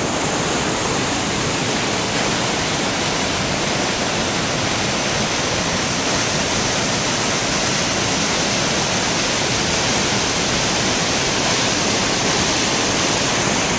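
Waterfalls pouring down a rock face into a pool: a steady, unbroken rush of falling water.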